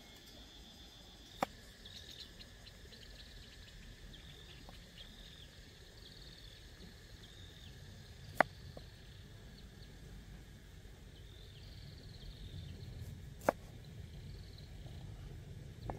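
Faint high chirping of outdoor wildlife, with three sharp knocks several seconds apart.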